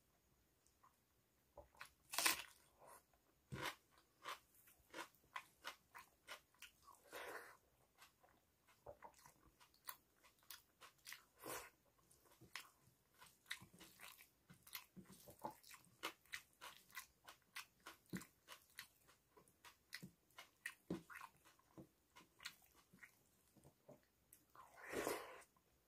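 Close-miked chewing of hand-eaten rice and dal with fried okra and potato fry: a steady run of small wet mouth clicks and smacks, a few a second, with a handful of louder bites at intervals.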